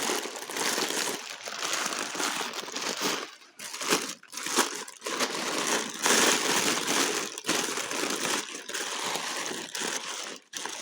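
Packing paper crumpling and rustling in irregular spurts as it is pulled off and unwrapped.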